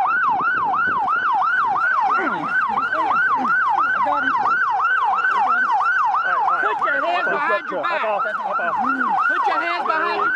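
Police siren sounding in a fast yelp, a tone sweeping up and down about four times a second without a break. Voices are faint underneath it, clearest about seven seconds in.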